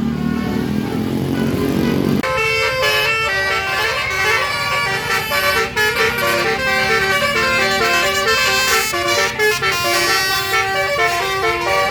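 Bus 'basuri' telolet horn, a multi-trumpet musical air horn, playing a quick tune of short stepped notes that starts about two seconds in, after a low rumble.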